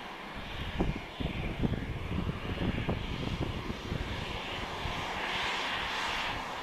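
Airliner engines running: an uneven low rumble for the first few seconds, then a broad rushing noise that grows louder toward the end.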